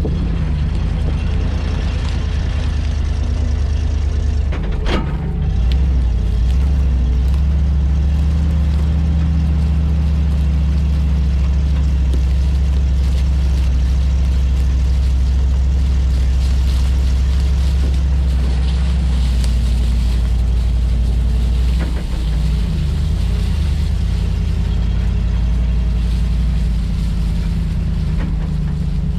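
Grain truck engine running steadily under way, a loud low drone. Twice, about five seconds in and again past twenty seconds, a click comes with a shift in the engine note.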